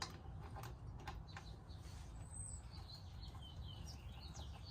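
Faint clicking of a ratchet and 17mm socket turning a drain plug in, a few clicks in the first second and a half. Then faint, short, high bird chirps.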